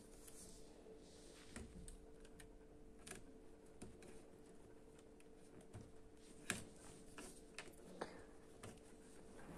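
Faint, irregular clicks and taps of plastic building-block parts being handled and pressed together on a CaDA brick tank model, the sharpest about six and a half seconds in, over a faint steady hum.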